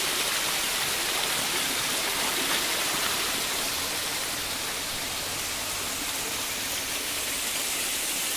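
Shallow stream water rushing steadily over a concrete channel bed.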